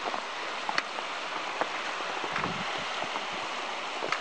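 Kananaskis River water rushing steadily past rocks, with scattered light ticks and a soft low thump about halfway through.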